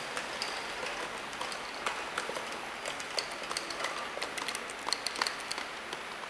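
Horizontal labeling machine running with a steady mechanical noise, while labelled plastic tubes rattle over its roller conveyor and drop into a cardboard box in a string of light, irregular clicks and knocks that come thickest a few seconds in.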